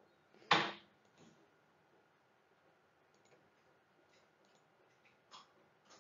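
A few clicks of a computer mouse over faint room hiss: a sharper one about half a second in, then faint ticks near the end.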